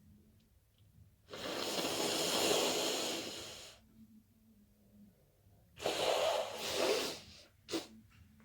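A person blowing their nose hard: one long blow of about two and a half seconds, then a shorter blow in two pushes, and a brief third burst near the end.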